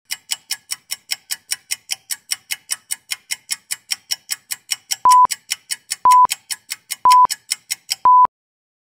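Fast, even clock-like ticking, about five ticks a second, joined about five seconds in by four short, loud beeps of the same pitch a second apart, like a countdown. It cuts off suddenly after the fourth beep.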